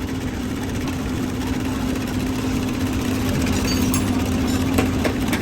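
An engine or motor running steadily with a constant low hum and no change in speed.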